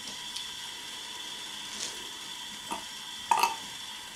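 Steady hiss of steam with a few short sputtering spits, the loudest about three and a half seconds in, from a home-built model steam engine whose flywheel is being turned by hand. The engine is still cold, so steam condenses in it and water spits out as it warms up.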